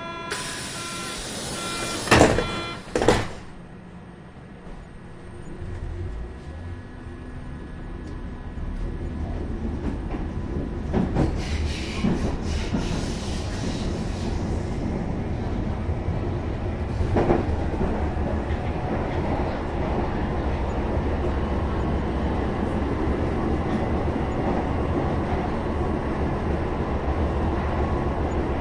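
Inside a train carriage: two heavy knocks about two and three seconds in, typical of the doors shutting, then the train's low rumble builds up and settles into a steady running noise. Brief hissing and an odd knock come partway through.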